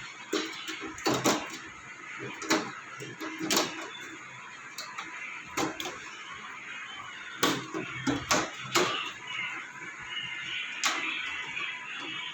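Irregular clicks, knocks and scrapes of parts being handled as the frame strip (beading) over an LED TV's backlight is taken off, over a steady hiss.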